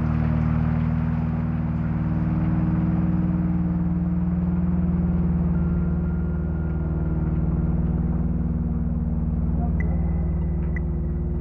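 Ambient VCV Rack modular-synthesizer drone: several steady low tones held over the hiss of heavy rain. A thin high tone sounds in the middle, and a higher one with a few faint clicks near the end.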